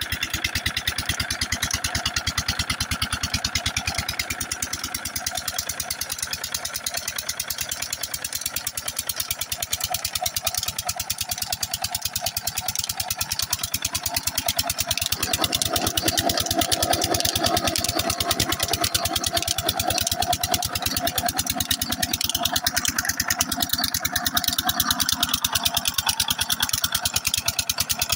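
Old 'Peter' diesel engine running steadily with an even, rapid firing beat while it drives a tubewell water pump by a flat belt off its flywheel. About halfway through the sound grows fuller and heavier.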